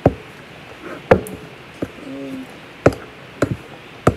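A spoon knocking against a glass mixing bowl while stirring stiff corn masa dough: several sharp, irregular knocks.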